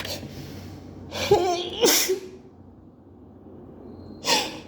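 A woman sneezing from an allergy attack: a drawn-in, rising 'ah' builds up and breaks into one sharp sneeze about two seconds in. Near the end a second build-up breath begins as the next sneeze comes on.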